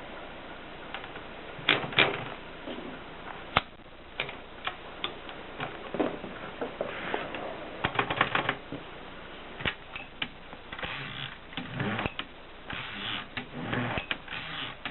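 Adler 7 typewriter clicking and clattering at an irregular pace: single sharp strikes with gaps between them, and short runs of quicker clatter.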